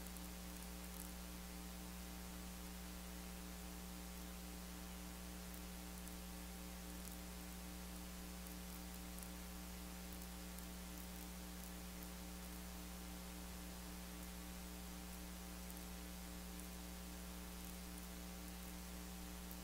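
Steady mains hum from the sound system, a low buzz with several evenly spaced overtones, one of them pulsing, over a faint hiss, while the microphone is out of use during a microphone fault.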